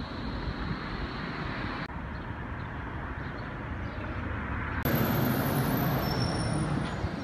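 Steady outdoor traffic rumble of a city street, changing abruptly about two seconds in and growing louder about five seconds in, with faint high-pitched tones over it.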